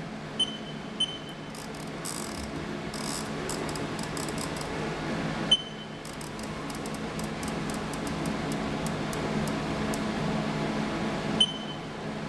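CNC machine's control panel beeping at key presses, twice about half a second apart near the start, once midway and once near the end, over the machine's steady hum. The hum grows louder through the second half as the machine is jogged toward the corner of the stock, then drops back after the last beep.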